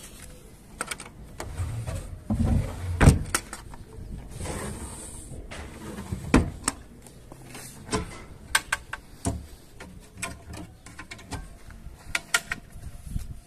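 Irregular knocks, taps and clatter of wooden pieces being handled, with two loud thumps about three and six seconds in and quick runs of light ticks later.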